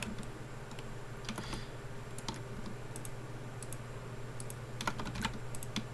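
Scattered clicks of a computer keyboard and mouse: irregular single taps and a few short runs, busiest near the end, over a steady low hum.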